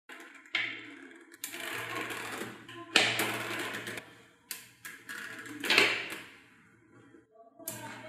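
Small metal magnetic balls clicking and clattering as they snap onto one another and are pressed into a flat sheet by hand, in several separate bursts.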